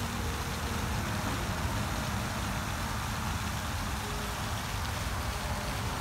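Steady rushing splash of a floating pond fountain's spray falling back onto the water, with a low rumble underneath.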